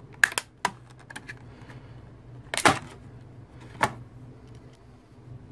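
Flat screwdriver prying at the clipped seam of a plastic external hard-drive enclosure: a few sharp plastic clicks and snaps, three close together near the start, the loudest about two and a half seconds in and another near four seconds, over a low steady hum.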